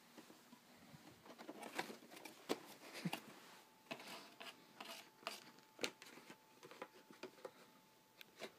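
Faint, irregular scratching and rustling of a thin cardboard box as a cat paws and pushes its head around inside it, in many short scrapes and taps.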